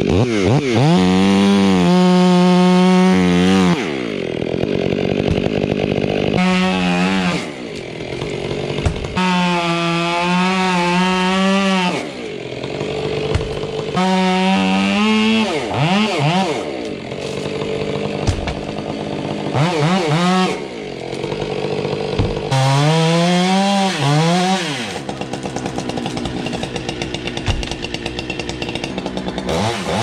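Gas chainsaw revved to full throttle in about six bursts, cutting wood, and dropping back toward idle between them.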